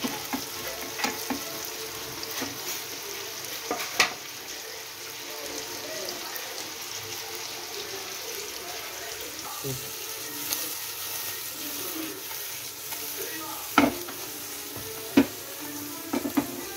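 Chopped onion, tomato, capsicum and green chillies sizzling steadily in oil in a non-stick frying pan, stirred with a wooden spatula at first. A few sharp knocks are heard now and then.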